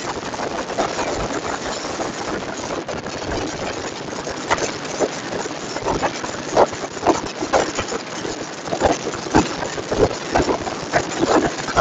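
Honda CG 150 Fan motorcycle at high speed: wind rushing over the phone's microphone over the single-cylinder engine. From about four seconds in, irregular choppy buffets break up the rush.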